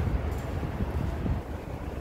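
Wind buffeting the microphone: an irregular low rumble that rises and falls without a clear pitch.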